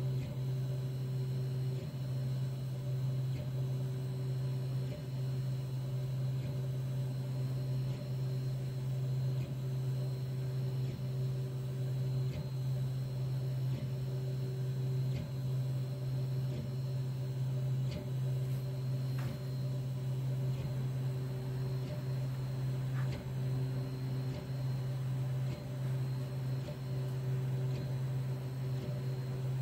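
3D printer running, a steady low hum with fainter higher tones over it and faint irregular ticks.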